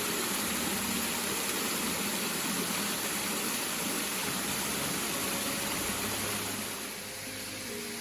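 Running water, a steady even rush like a stream or small cascade, swelling in and easing off near the end, with soft background music underneath.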